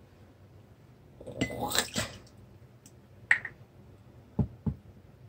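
Glassware and a bourbon bottle being handled while a shot is measured: a short rustle about a second in, a single clink with a brief ring a little past three seconds, then two sharp knocks about a second later.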